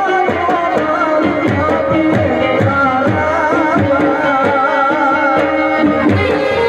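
Live Indian folk ensemble through a PA system. Harmonium chords and a wavering melody line play over a steady tabla-style hand-drum rhythm with deep, bending bass strokes.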